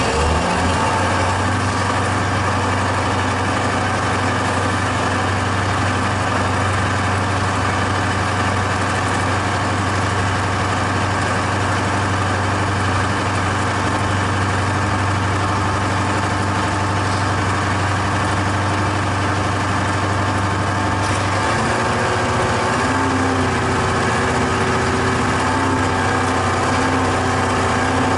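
KhTZ-17221 tractor's diesel engine running steadily, its pitch shifting up slightly about three-quarters of the way through.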